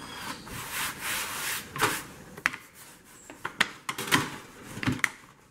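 Hands rubbing and pressing pizza dough across a wooden board, a dry swishing, then a rolling pin being worked over the dough, with sharp light knocks and clicks about every half second to second as it meets the board.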